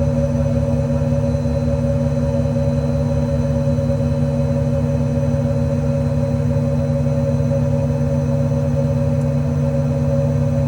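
American Eagle 30P hydraulic-driven air compressor running steadily on the truck's service body, with the 6.7 Power Stroke diesel running underneath to drive its hydraulics. A loud, even hum with a steady drone and no change in pitch.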